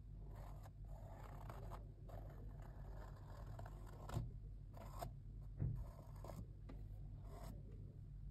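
Felt-tip marker scratching across a rough, textured canvas in a series of drawing strokes. Two short knocks about four and five and a half seconds in stand out above the scratching, with a steady low hum underneath.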